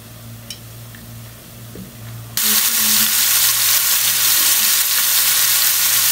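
A low hum, then about two and a half seconds in a loud sizzling starts suddenly and holds steady: pieces of yogurt-marinated chicken tikka frying in hot oil in a nonstick pan.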